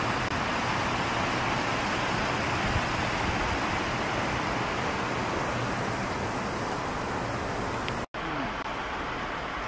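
Steady rush of a rocky mountain river running over rapids. It breaks off abruptly about eight seconds in, and a quieter, duller outdoor noise follows.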